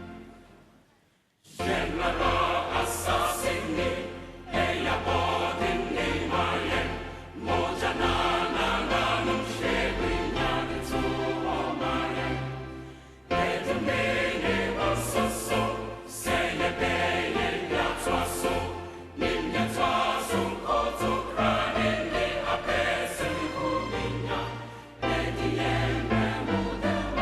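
A choir singing with instrumental backing, in phrases a few seconds long with short breaks between them; it comes in after a brief silence about a second and a half in.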